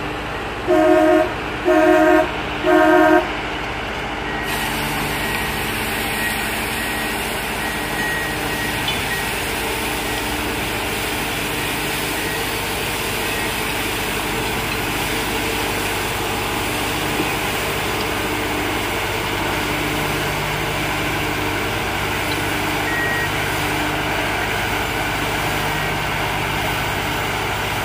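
Three short, loud warning beeps about a second apart, then a rail-mounted track maintenance machine's engine running steadily as it moves slowly along the track, its rotary broom sweeping ballast off the ties.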